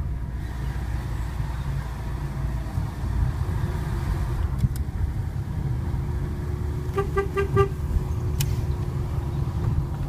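Steady engine and road rumble from a moving Fiat Panda, with four quick horn toots about seven seconds in: a warning honk to any oncoming car on a one-lane road with no room to pass.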